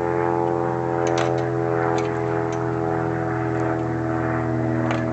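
A steady, even-pitched engine or motor drone that holds level throughout, with a few faint clicks over it.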